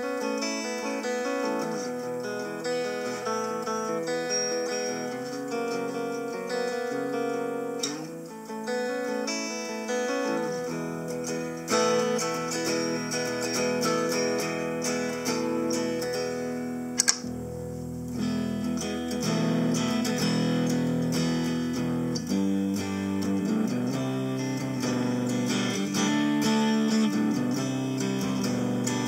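Guitar played through a Harley Benton DNAfx GiT multi-effects processor preset: plucked notes and strummed chords ringing on, with lower notes coming in about ten seconds in. A single sharp click sounds about two-thirds of the way through.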